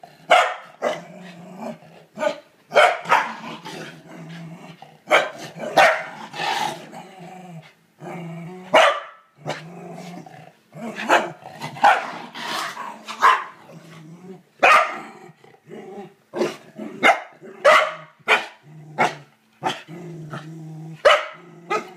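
Welsh corgi puppy barking and growling at a toilet bowl brush it is attacking. Repeated barks come about one or two a second, with a low growl held between them.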